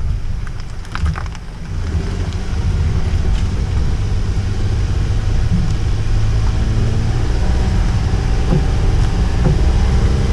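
Honda N-VAN on the move: steady low engine and road rumble, dipping briefly about a second in, then rising and holding steady.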